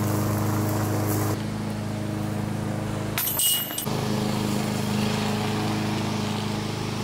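A steady low machine hum, like a motor running, with a short noisy scrape or rustle a little past three seconds in.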